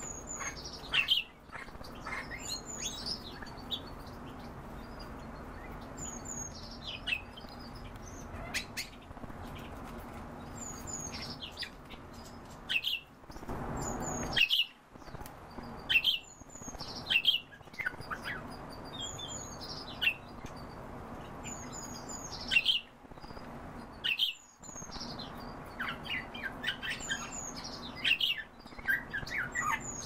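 Common starling singing: short, high, falling whistles and squeaky notes repeated every second or two, mixed with clicks.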